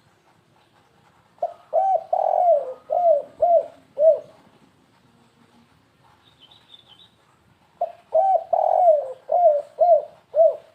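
Spotted dove (tekukur) cooing in the stuttering 'kuk-3 gagap' style, the call used to lure other doves. It gives two phrases a few seconds apart, each of about six low, arched coos with a longer, fuller note early in the phrase.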